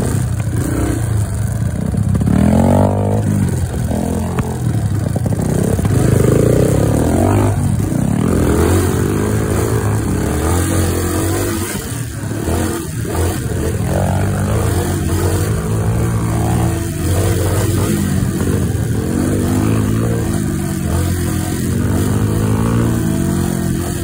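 Dirt bike engine running hard on a rough trail, its pitch rising and falling over and over as the rider works the throttle.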